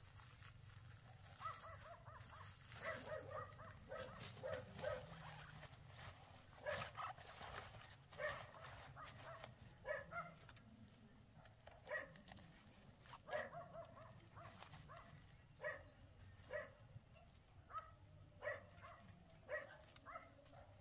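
Faint short animal calls, repeated about once a second, with a few light knocks in the first few seconds.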